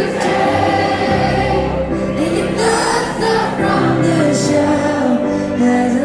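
Live band music from a slow song, with sustained chords and sung voices gliding over them.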